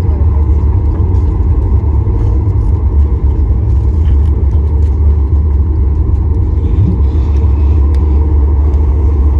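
Loud, steady low rumble inside the cabin of a Boeing 737 MAX 8 airliner, from its CFM LEAP-1B engines and the airframe, around landing.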